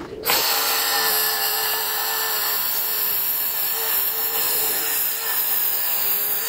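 Cordless circular saw starting up and ripping lengthwise through a 2x6 board, trimming off its rounded edge. The motor holds a steady tone under the even noise of the blade cutting the wood.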